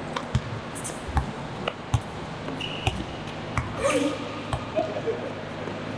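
A basketball bouncing on a gym court floor: a string of irregular thuds, with a short high squeak a little before the middle and brief shouts from players around two-thirds of the way through.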